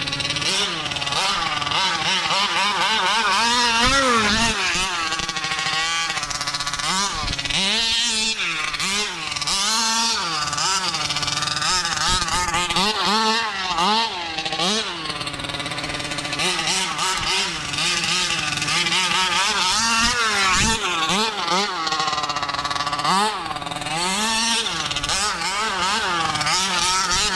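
Taylor 50cc two-stroke engine of a 1/5-scale Kraken Vekkta RC truck revving up and down again and again as it is driven, its pitch rising and falling every second or two and climbing to around 15,000 rpm.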